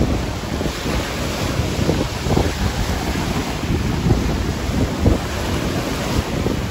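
Strong storm wind gusting and buffeting the microphone: a continuous low rumble that swells and eases irregularly.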